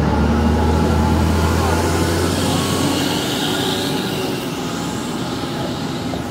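City traffic noise with a heavy passing vehicle's low engine drone, steady at first and weakening after about three seconds.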